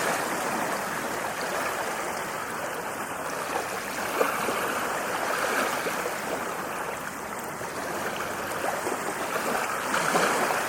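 Ocean waves washing on the shore, a steady rushing wash that swells and eases slowly.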